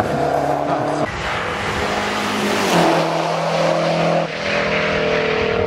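Lancia Delta Integrale rally car's turbocharged four-cylinder engine running hard as it climbs under acceleration. The engine note changes abruptly a few times.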